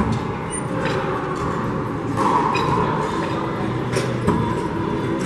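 A few sharp, echoing knocks of a rubber handball hitting the floor or walls of an enclosed four-wall court, irregularly spaced, over a steady hiss of room noise.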